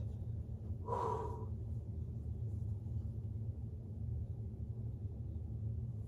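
A single short, sharp breath about a second in, taken nervously just before attempting a backbend, over a steady low hum.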